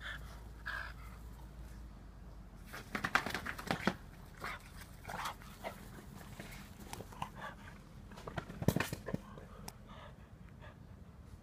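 French bulldogs making short dog noises during play, in a quick cluster about three seconds in and again, loudest, near nine seconds.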